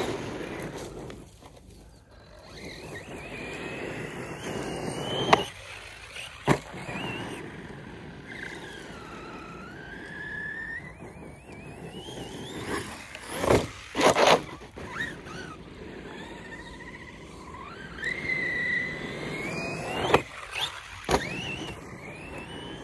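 Rival MT8 RC monster truck's brushless motor whining, its pitch rising and falling with the throttle. Several sharp knocks come through, the truck landing jumps.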